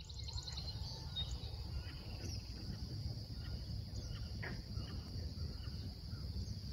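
Outdoor marsh ambience: a steady high-pitched trilling insect chorus, with a few brief chirps and a low rumble underneath.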